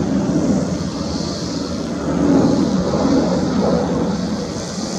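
Jet engines of an Airbus A320-family airliner climbing out after takeoff: a steady rumble with a hiss above it, swelling slightly a couple of seconds in.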